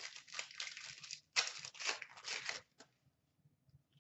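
A foil trading-card pack wrapper being torn open and crinkled by hand, in two spells, the second louder one stopping a little before three seconds in. Faint clicks of cards being handled follow.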